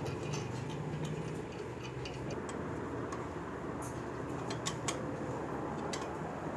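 Light, irregular metallic ticks of a T-handle socket wrench turning a bolt into a motorcycle engine's oil cooler mounting plate, a few clicks spread over several seconds, over a steady low hum.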